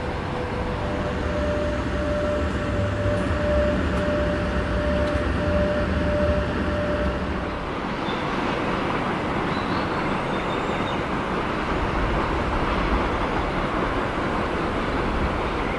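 Suburban electric train running on the rails, a steady rumble and rushing noise with a thin held whine that stops about seven and a half seconds in.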